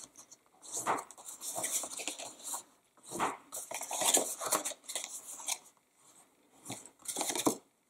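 Bone folder scraping along the folds of cardstock as they are creased, with the card rustling as it is handled, in several bursts of strokes with short pauses between.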